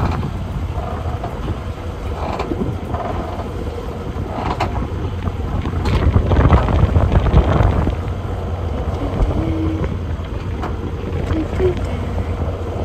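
Strong wind buffeting the phone's microphone, a heavy low rumble that swells about six to eight seconds in, with a faint steady hum beneath it.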